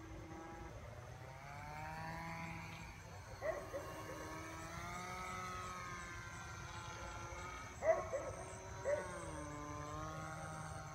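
Battery-electric motor and propeller of a small foamboard flying-wing RC plane buzzing in flight, its pitch sliding up and down as it flies past and the throttle changes. A few short sharp sounds stand out about three and a half, eight and nine seconds in, the loudest near eight seconds.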